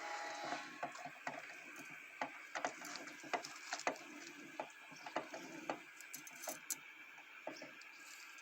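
Irregular light clicks and knocks of a gearbox's shift mechanism being moved through the gears, about one or two a second.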